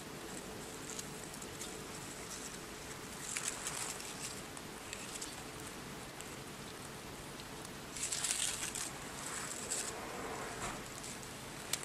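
Soft rustling and crackling of fingers and dry leaf litter handled close to the microphone, over a steady outdoor hiss. Louder rustles come about a third of the way in and again for about a second two-thirds through, with a sharp click near the end.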